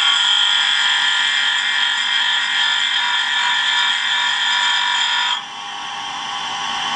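Tool-and-cutter grinder's wheel grinding a hand-held steel tool bit: a steady, high-pitched grinding hiss. It drops off abruptly a little past five seconds in as the bit is lifted away, leaving the wheel spinning.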